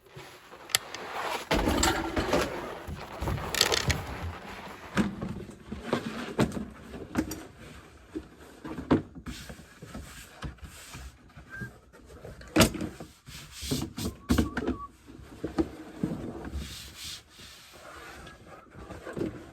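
Workbench handling sounds: rustling with irregular knocks and sharp clicks as materials and tools are moved about. The rustling is loudest in the first few seconds, and there is a sharp knock about twelve seconds in.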